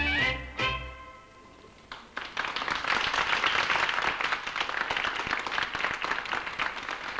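Dance music ends on a final chord in the first second and dies away. After a short lull, a crowd of dancers and onlookers starts clapping and keeps up steady applause.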